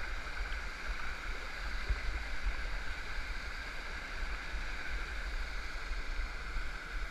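Small waterfall and river water rushing steadily, a continuous noise of falling and running water. One light knock comes about two seconds in.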